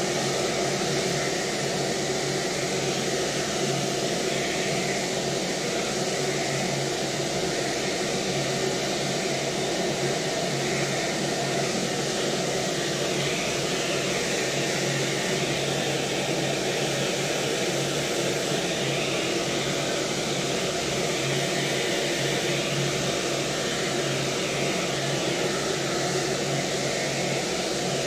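Hair dryer on a flexible hose blowing steadily, a constant rushing whir with a low motor hum.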